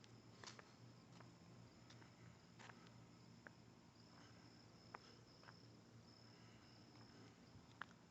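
Near silence: a faint low hum and a thin, high, steady whine, with a few faint clicks.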